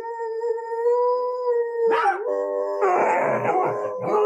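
A dog howling: one long, steady howl lasting about two seconds, then a second, rougher howl.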